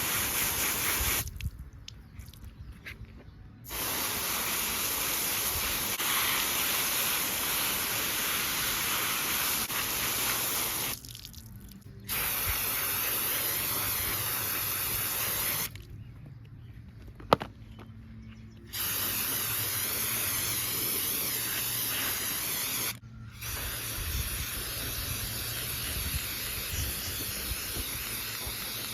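Liquid spraying in several long hissing bursts of a few seconds each, with short pauses between: K&N performance air filters being cleaned.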